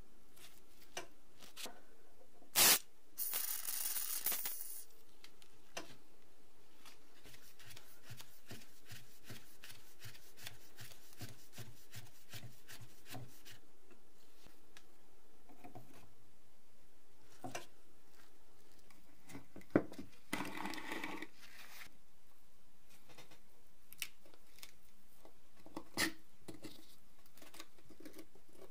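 Hands taking apart a rusty old metal flip calendar: scattered metal clicks and knocks, two short scraping bursts, and a screwdriver turning in a rusted screw with a run of faint ticks.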